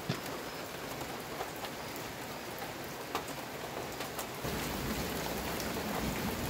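Heavy rain falling steadily, with a few sharp ticks scattered through it. A little over four seconds in, it gets louder and deeper.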